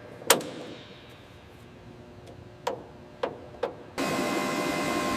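A few sharp clicks and knocks, spaced out, as weapon-loading hardware is handled. About four seconds in, a steady mechanical hum with a held whine starts abruptly.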